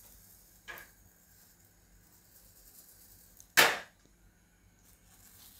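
An iron tawa held upside down over a gas burner knocks against the metal stove: a light tap about a second in and one sharp metallic clank about three and a half seconds in, over a faint steady burner hiss.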